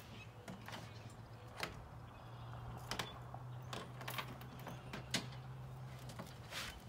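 Riding lawn mower creeping slowly forward: faint scattered clicks and creaks over a low steady hum that grows a little stronger through the middle.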